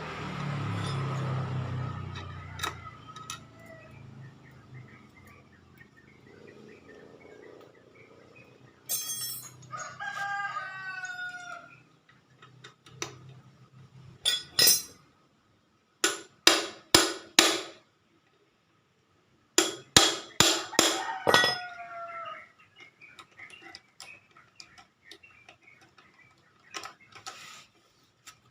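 Two drawn-out calls that fall in pitch, about ten seconds apart, like a rooster crowing, with runs of sharp clicks or knocks in between. A brief low rumble opens the stretch.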